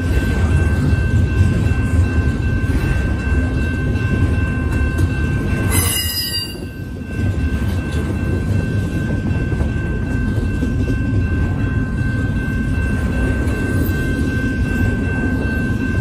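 Double-stack intermodal container well cars rolling past on the rails with a steady heavy rumble and a steady high-pitched squeal over it. A brief screech comes about six seconds in, followed by a short dip in the rumble.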